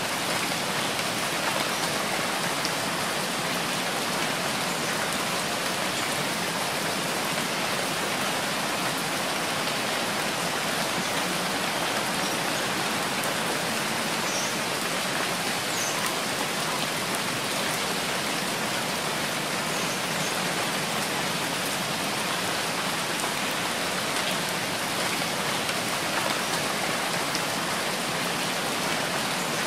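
Steady rain falling: a dense, even hiss of drops that holds level without breaks.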